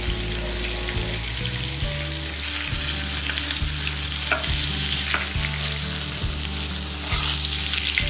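Masala-coated chicken pieces frying in oil in a pan: a steady sizzle that gets louder about two and a half seconds in as the pieces are moved. A slotted spoon clicks against the pan a few times.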